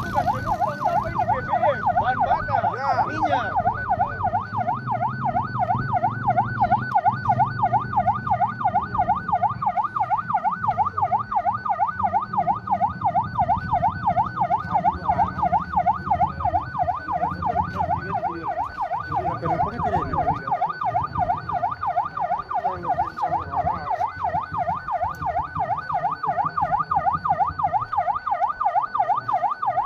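Emergency vehicle's electronic siren in a fast yelp, its pitch rising and falling several times a second without a break, over a low rumble.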